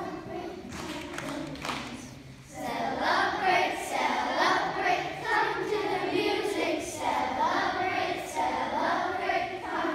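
A small group of children singing together, unaccompanied; the singing starts about two and a half seconds in after a quieter stretch with a few clicks.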